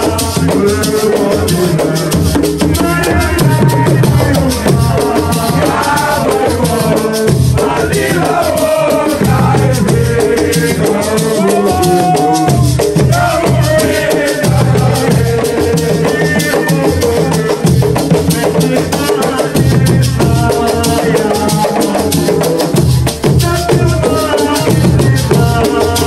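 Live Senegalese assiko music: a man sings into a microphone over a square frame drum and rattling percussion keeping a steady beat.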